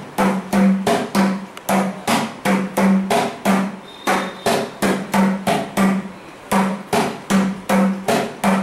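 Mridangam played solo in a steady, quick rhythm: sharp strokes several times a second, many of them ringing at one clear low pitch from the tuned head.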